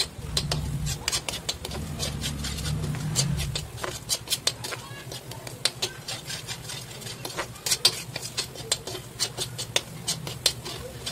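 Metal spatula scraping and clicking against a metal kadhai as a thick masala paste is stirred and fried, in many short, irregular strokes. A low hum runs under the first few seconds and comes back near the end.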